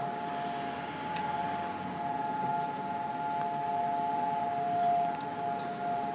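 Israeli civil-defence siren sounding one long steady tone with no rise or fall: the Yom HaZikaron memorial siren, which signals the moment of remembrance.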